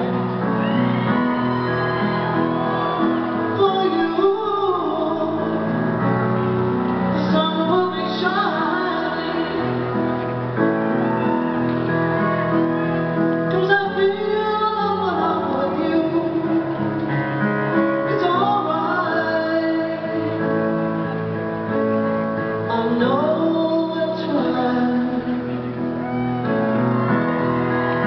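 A woman singing a slow ballad live, accompanied on piano.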